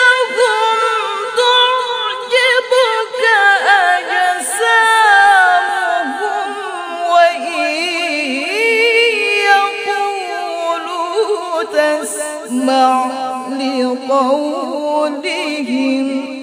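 A woman reciting the Quran in the melodic tilawah style, holding one long, ornamented vocal phrase with wavering runs that gradually falls in pitch.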